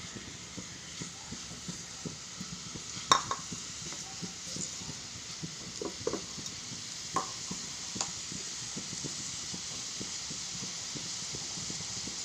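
Marinated chicken pieces sizzling and crackling as they fry in hot coconut oil in a pan, the sizzle growing a little louder. A few sharp clicks stand out, about three seconds in and again around seven and eight seconds.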